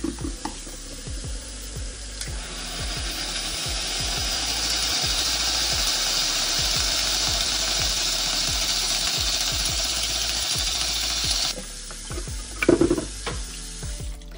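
Tap water running steadily onto the closed lid of a pressure cooker in a sink, cooling it down to bring the pressure off before opening. The tap comes on about two seconds in and shuts off abruptly near the end.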